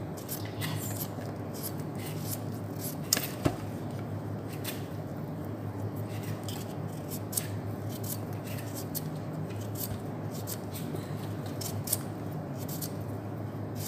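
A small kitchen knife paring the skin off a raw beetroot: a run of short, scratchy cutting and scraping strokes, with a few sharper clicks. A steady low hum runs underneath.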